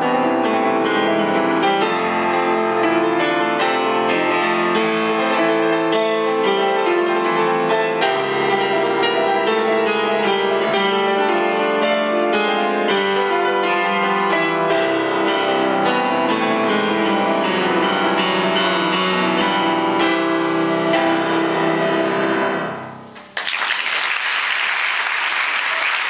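Solo classical piano played on a concert grand. About 23 seconds in the playing stops, and after a brief pause an audience breaks into applause.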